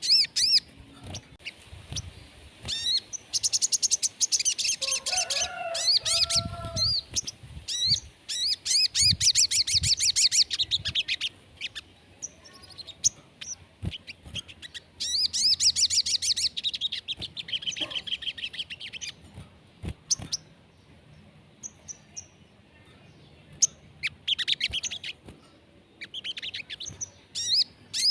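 A sogon songbird singing in energetic bursts of rapid, high chirping trills, separated by short pauses. This is the 'gacor' song of a bird in full voice, used to stimulate other sogon birds to sing. Around five seconds in, a lower, separate call joins briefly.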